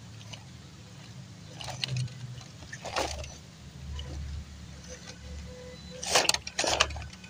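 Small electric motor and gears of a scale RC crawler whirring steadily as it climbs a dirt bank, with bursts of tyres scrabbling and dirt crumbling, loudest about six seconds in.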